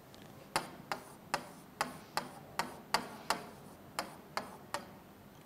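Pen tip clicking against a writing board as a word is written by hand, about a dozen sharp taps at two or three a second.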